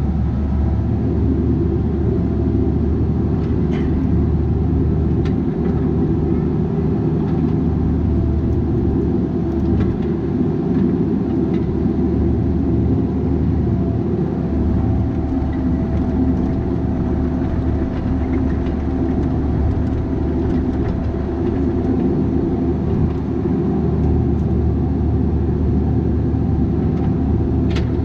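Bobcat 337G mini excavator's diesel engine running steadily under working load, with a few short knocks.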